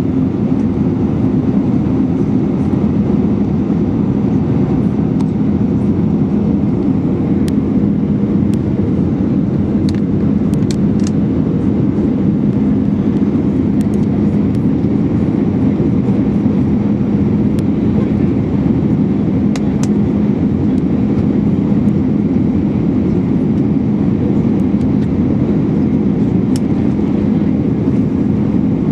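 Steady cabin noise inside an Airbus A319 on its approach to land: rushing airflow and the CFM56-5B engines running, with a low, even hum and a few faint ticks.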